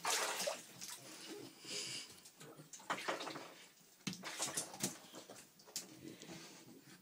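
A Chesapeake Bay Retriever splashing at the water in a filled bathtub, in irregular bursts of sloshing.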